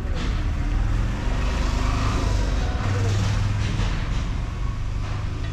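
A motor vehicle's engine running steadily with a low hum, growing a little louder about three seconds in.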